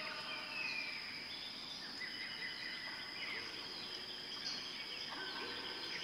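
Natural ambience of several wild birds chirping and calling at once: short whistled notes and quick rising and falling glides over a steady background hiss.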